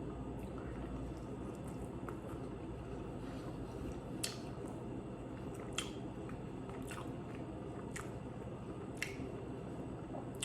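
A person chewing and eating food, with a few brief sharp clicks, over a steady low hum.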